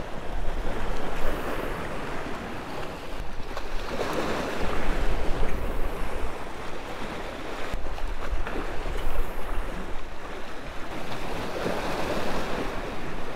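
Sea waves washing and breaking against jetty rocks in surges that swell and ebb, with gusting wind buffeting the microphone as a low rumble.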